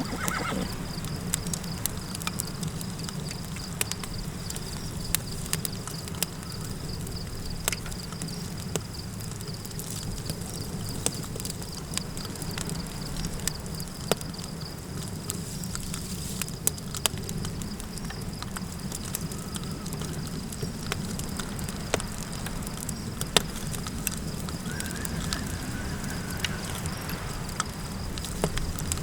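Campfire crackling, with scattered sharp pops, over a low steady wind rumble. A faint steady high tone runs beneath it.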